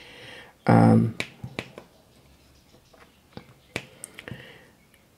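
Sparse, irregular light clicks of a diamond-painting drill pen picking up drills and pressing them onto the sticky canvas. A brief vocal sound comes about a second in.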